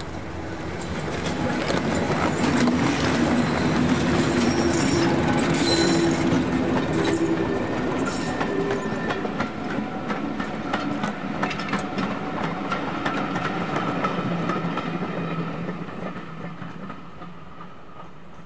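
Diesel locomotive hauling a train past, its engine note and the wheels clicking over rail joints. The sound builds over the first couple of seconds, holds for several seconds, then slowly fades away.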